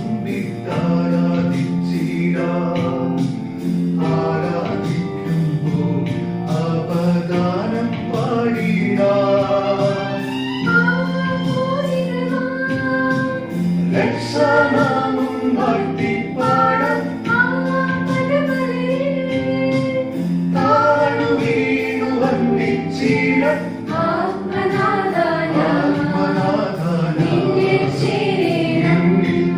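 A group of men's and women's voices singing a Christian hymn together over held instrumental chords that change every few seconds.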